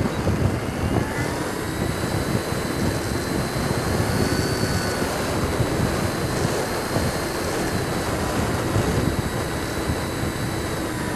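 Electric ducted fan of a Freewing Hawk 70 mm EDF model jet whining, with a few steady tones that drift a little in pitch as the throttle moves. Under it, heavy gusty wind buffets the plane's onboard camera microphone.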